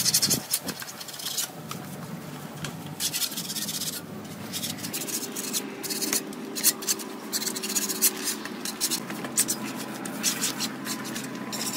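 Hand tools scraping and brushing dirt off an old house wall, in many irregular, rasping strokes.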